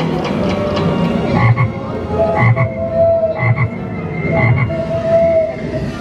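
Giant Chocolate Frog window display playing a recorded frog croak: four deep croaks about a second apart, starting about a second and a half in.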